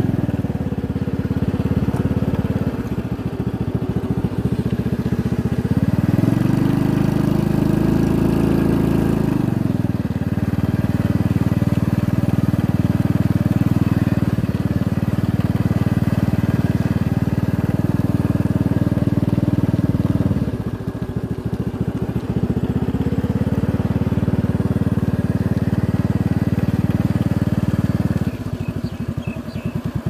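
Small motorcycle engine running under way, its note rising for a few seconds and settling back, then easing off twice as the throttle changes.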